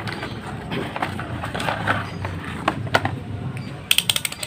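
Handling clicks from a handheld digital multimeter, ending in a quick run of about eight sharp clicks near the end as its rotary selector dial is turned through its detents.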